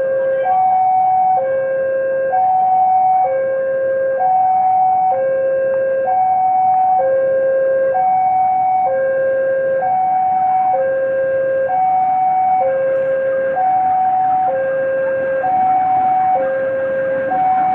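Railway level-crossing warning alarm sounding a steady two-tone high-low signal, each tone held just under a second. It warns that a train is approaching the closed crossing.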